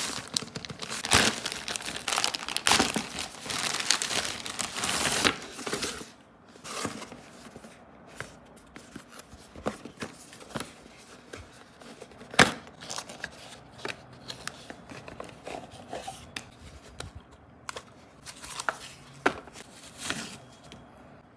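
A plastic courier mailer bag crinkled and torn open, a loud dense rustling for about the first six seconds. Then quieter handling of cardboard boxes and a plastic glasses case, with scattered taps and clicks, one sharp click about halfway through and a few short rustles near the end.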